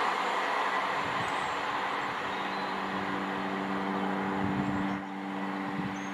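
Class 158 diesel multiple unit pulling away, its underfloor diesel engines holding a steady hum over the fading rumble of wheels on rail. The sound dies away gradually as the train recedes, dropping a little about five seconds in.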